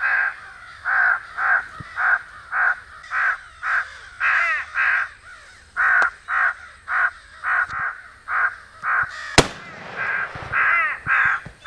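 Crow calls from an electronic crow caller: short caws repeated about two to three times a second, with a single sharp gunshot about nine seconds in.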